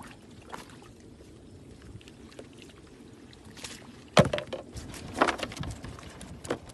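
Water sloshing with a few sharp knocks and splashes; the loudest hit comes about four seconds in, with two more near the end.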